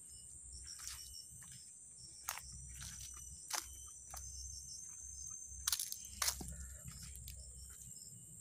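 Crickets in the forest keep up a steady high-pitched trill. Over it come a handful of sharp snaps and crackles, most plainly a couple of seconds in, about three and a half seconds in, and twice near six seconds, like twigs and dry leaves breaking underfoot.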